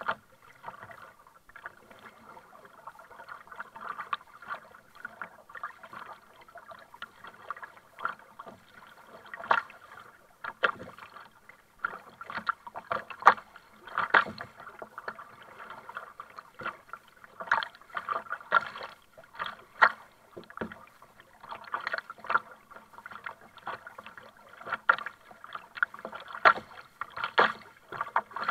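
Double-bladed kayak paddle splashing into seawater on each stroke, with choppy water slapping around the kayak's hull: an irregular run of sharp splashes.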